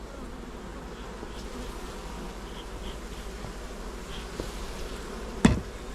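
Honeybee colony buzzing steadily from an open hive, with one sharp knock about five and a half seconds in.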